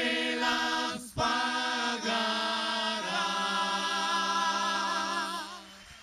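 Several voices singing in harmony, holding long notes with no clear instrumental backing. There is a brief break about a second in, the lower voices move to a new chord about three seconds in, and the singing fades near the end.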